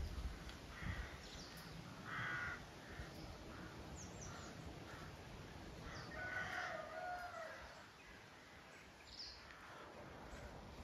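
Distant bird calls: a short harsh call about two seconds in, then a longer drawn-out call from about six to seven and a half seconds, with a few brief high chirps from small birds.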